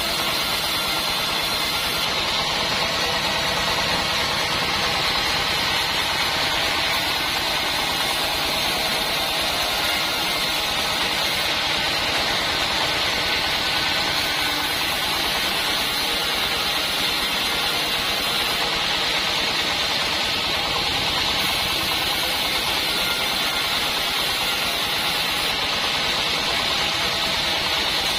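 Band sawmill running with its band saw blade going, a steady high-pitched noise that holds the same level without a break.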